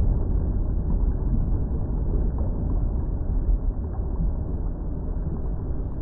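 Bubbling volcanic lava sound effect: a dense low rumble full of rapid, irregular bubbling, easing off slowly.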